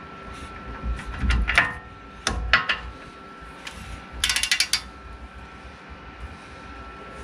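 Click-type torque wrench set to 100 foot-pounds, working on brake caliper bracket bolts. A few sharp metal clicks and knocks come in the first three seconds, then a quick run of ratchet clicks about four seconds in.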